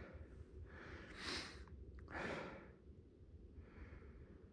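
A man's faint breathing close to the microphone: a few slow breaths in and out, about a second apart.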